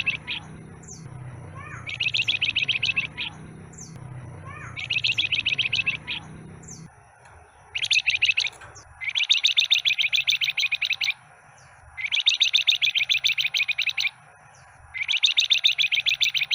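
A caged flamboyan songbird singing: a series of rapid, buzzy trills, each phrase lasting one to two seconds with short pauses between, the later phrases longer and closer together. A low hum underneath stops about halfway through.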